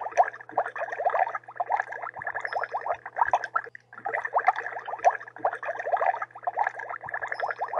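Water bubbling continuously, a rapid stream of bubble blips that breaks off briefly a little under four seconds in, over a faint steady low hum.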